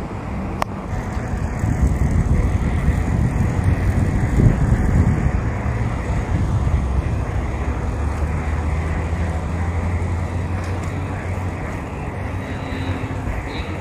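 Low, steady rumble of motor traffic, with a vehicle engine's hum holding steady through the middle, and a single click about half a second in.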